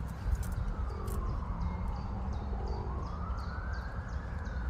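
A siren wailing in a slow fall and rise of pitch, over a steady low rumble, with short high chirps repeating about twice a second.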